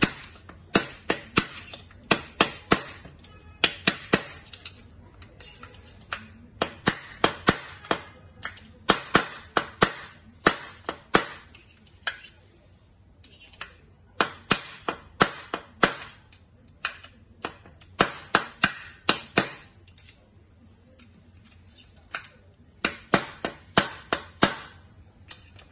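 Hammer striking the end of a screwdriver held against the crank bearing of an exercise bike's frame, driving at the bearing during a bearing replacement. Quick runs of sharp strikes, a few a second, with short pauses between the runs.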